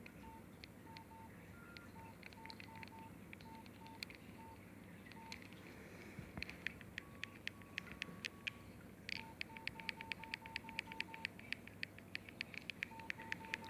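A Nokia 6300 mobile phone beeping with short key tones as its keys are pressed. Some beeps are spaced unevenly and others come in quick, even runs. From about halfway, faint rapid clicking runs at about five clicks a second.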